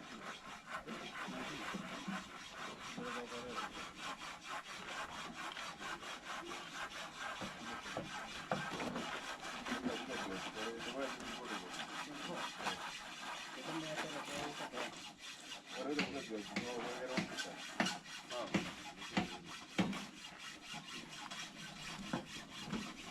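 Hand saw cutting wood in repeated back-and-forth strokes, with faint voices in the background.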